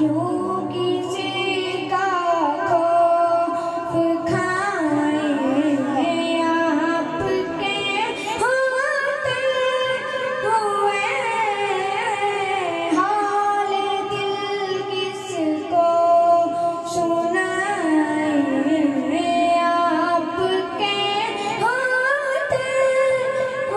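A boy's solo voice singing a naat, a devotional poem, into a microphone over a sound system, in long ornamented melodic phrases with a wavering pitch.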